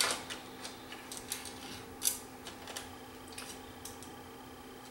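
Hand screwdriver driving small screws to hold a VHS VCR's tape mechanism to its chassis: scattered light clicks and scrapes of the bit and screws, the loudest about two seconds in.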